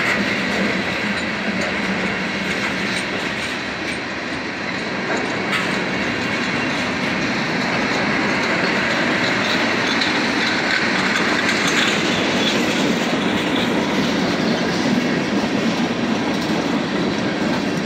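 Tank cars of a freight train rolling past close by, their steel wheels making a steady, loud rumble and clatter on the rails.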